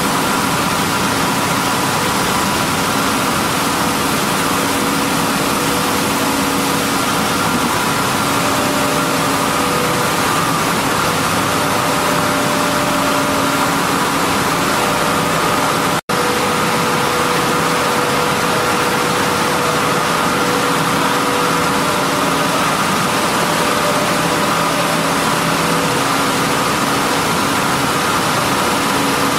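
A 30-ton-per-day millet milling line running: a loud, steady drone of processing machinery with several steady hum tones running through it. The sound cuts out for a split second about halfway through.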